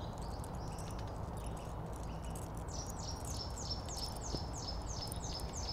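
Quiet outdoor background hum. From about three seconds in, a bird repeats a quick series of short, high chirps, each sliding downward, about four a second.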